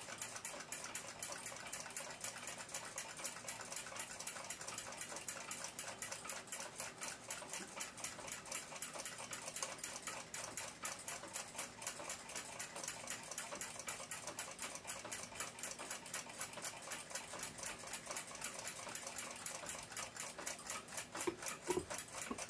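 Chelsea ship's bell clock ticking rapidly and evenly from its balance-wheel escapement, the movement running. There is a light handling knock near the end.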